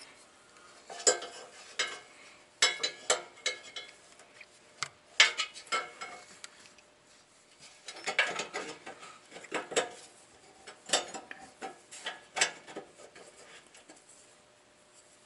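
Small sheet-metal parts of an RV furnace's burner housing clinking and scraping as they are fitted by hand: irregular clusters of sharp metallic clicks.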